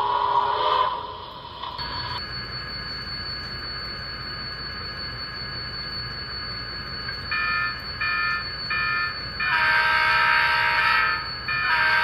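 Sound-decoder audio from an HO scale Milwaukee Road SDL39 model with an ESU LokSound V5: the diesel engine idles with a high thin whine. From about seven seconds in, its recorded Leslie RS3L horn gives three short blasts, then two long ones. It opens with the last second of the previous steam model's horn or whistle sounding, which cuts off.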